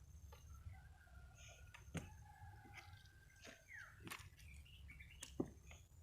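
Near silence: scattered faint clicks and knocks, with a few faint high chirps and a short falling chirp.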